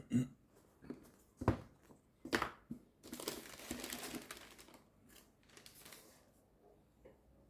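Paper packaging from a shoe box being handled and crumpled: a few short, sharp rustles, then a longer stretch of crinkling that fades out.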